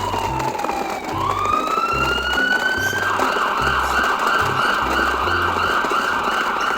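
Siren wailing, its pitch sliding down and back up, then switching about three seconds in to a fast warbling yelp, over background music with a repeating bass beat.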